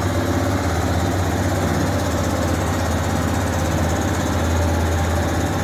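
Yamaha Fazer 250's single-cylinder four-stroke engine idling steadily.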